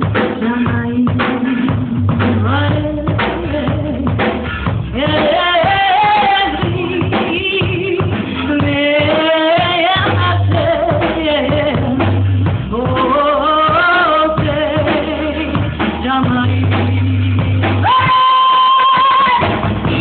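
Band music with a drum kit, bass notes and a gliding sung melody, ending on a long held high note.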